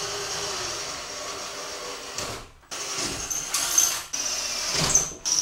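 Cordless drill boring up through the 11-gauge steel tabletop from beneath, its motor and bit running steadily with a high whine. It runs in three stretches, with brief stops about two and a half seconds in and about four seconds in.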